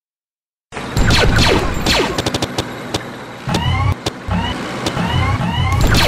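Cartoon sound effects for an animated ident of toy-block tanks: after a brief silence, falling whistles and clicks, then a low rumble of thumps with several short rising chirps as the tanks fire and blocks scatter.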